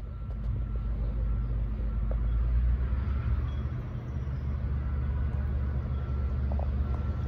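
Low, steady diesel rumble from an approaching NS GP38-2 locomotive's EMD 16-cylinder two-stroke engine.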